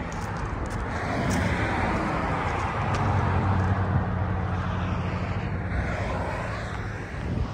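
Road traffic passing on a highway: tyre and engine noise swells over the first few seconds, with a steady low engine hum in the middle, and eases off near the end.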